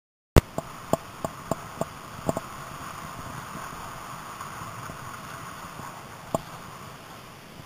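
Mountain bike riding over a rough track: a steady noise of wind and tyres, broken by a quick string of sharp knocks from the bike jolting over bumps in the first couple of seconds and one more knock near the end. The sound cuts in suddenly about half a second in.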